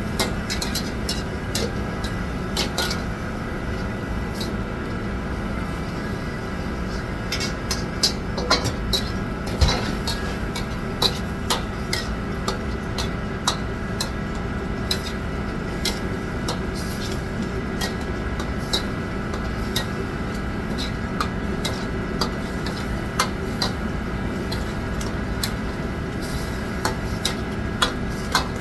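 Kitchen cooking sounds: metal utensils clinking and scraping against pots and pans in many short, sharp knocks at an uneven pace, over a steady mechanical hum.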